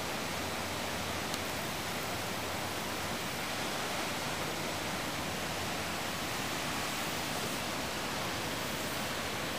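The Winooski River in flood stage rushing steadily: fast, muddy high water churning over rocks, an even noise with no breaks.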